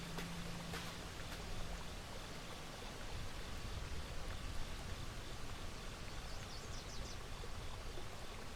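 Outdoor trail ambience: a steady rushing hiss with a few faint clicks early on. A low hum fades out about two seconds in, and a quick run of high bird chirps comes about six to seven seconds in.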